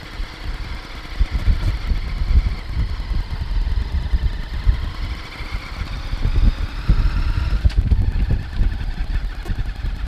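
Honda Shadow V-twin motorcycle engine running while riding, with a rumble of wind on the microphone.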